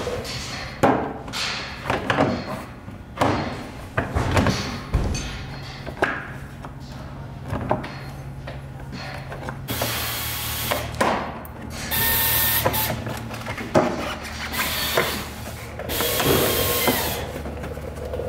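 Plastic wheel-well liner and fender trim being handled and pressed into place, with scattered knocks and clicks. From about ten seconds in, several bursts of a whirring power tool.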